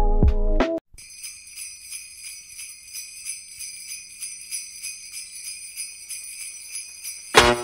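Sleigh bells shaken alone in a steady rhythm as a recorded song intro. A short stretch of music cuts off just before the bells start, and a full hip-hop beat with heavy bass comes in near the end.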